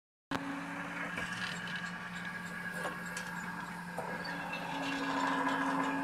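Drive unit of an old rod-line oil-well pumping installation running, with a steady machine hum. Its steel pull rods scrape and clank as they move back and forth, giving scattered clicks.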